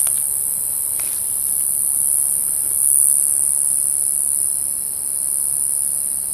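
Steady, high-pitched chorus of night crickets, an unbroken shrill drone. Two brief clicks sound about a second apart near the start.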